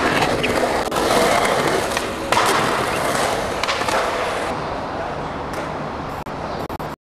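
Skateboard wheels rolling over the concrete of a skatepark bowl, a steady gritty roar, with several sharp clacks of the board on the concrete, the loudest about two seconds in.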